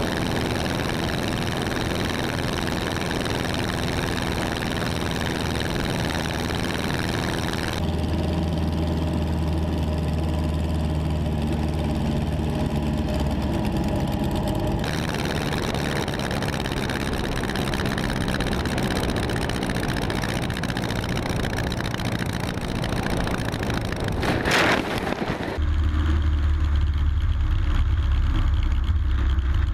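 Single-engine light plane's engine and propeller running steadily at climb power, mixed with heavy wind rush, heard through action cameras mounted on the plane. The sound switches abruptly between a broad wind rush and a deeper, steadier engine hum several times. Near the end there is a single sharp knock.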